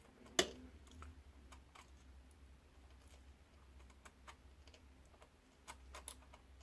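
Faint, scattered small clicks and taps of tiny screws, a screwdriver and plastic drone parts being handled, with one sharper, louder click about half a second in.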